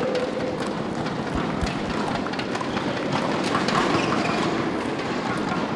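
Steady background noise of an indoor tennis hall, with faint knocks of tennis balls being hit in a warm-up rally.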